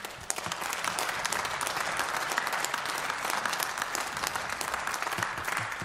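Applause from members of parliament in the chamber: many people clapping steadily, thinning out near the end.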